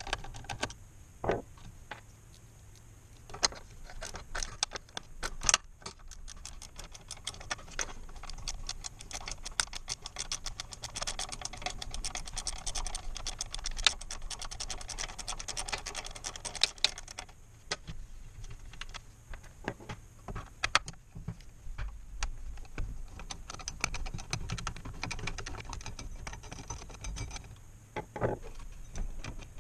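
Hand tools working small screws out of a garage door opener's metal bearing plate: a dense run of rapid, fine metallic clicks through the middle of the stretch, with scattered single clinks and taps before and after.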